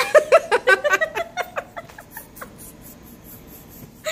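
A woman laughing: a quick run of short ha-ha pulses in the first second and a half, tailing off into quiet.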